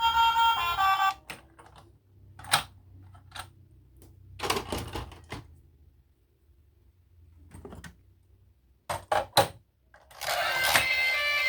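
Scattered clicks, taps and light rustles, as of small objects being handled, with a quick run of three sharp clicks near the end. Background music plays at the start, stops about a second in, and comes back near the end.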